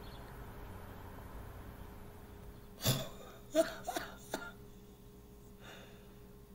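Quiet room tone, then about three seconds in a woman's few short chuckles, several brief sounds in quick succession.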